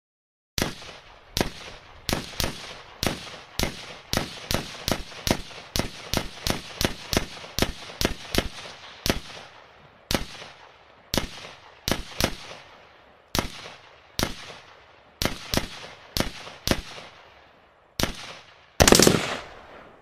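Pistol gunshots, about thirty sharp cracks each with a short ringing tail, fired singly at uneven intervals and sometimes in quick succession. Near the end comes one louder, denser blast about half a second long.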